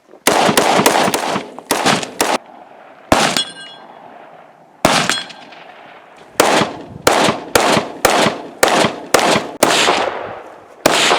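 Rifle fire during an IPSC rifle stage: a fast string of shots, one followed by a brief metallic ring, then a pause, then an even run of shots about two a second.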